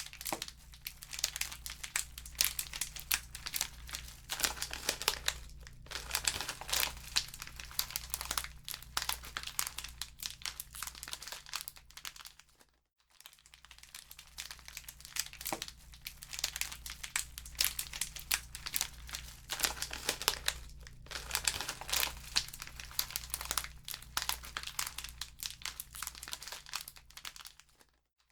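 Wood fire crackling in a fireplace: dense, irregular pops and snaps over a steady low rumble. It cuts out for a moment about halfway through.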